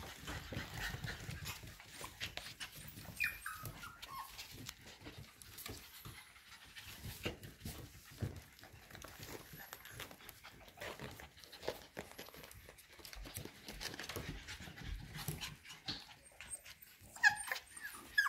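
F1B cockapoo puppies panting and scampering, claws clicking on a hardwood floor, with a few short high-pitched falling squeals a few seconds in and again near the end.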